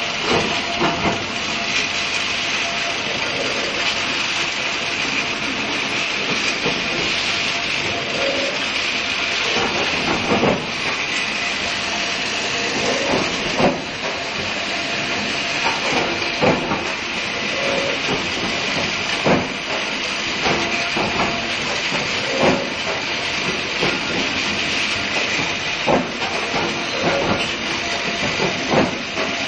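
Induction billet heater heating brass billets for forging, running with a steady hiss and a faint constant tone, broken by a dozen or so irregular knocks.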